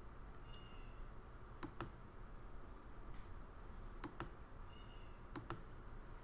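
Computer mouse clicking: three pairs of short clicks, each a button press and release, spread through a few seconds against low background hum.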